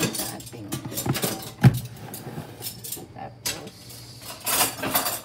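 Items being handled on a kitchen counter: light clinks, rustles and knocks, with one sharp knock about a second and a half in.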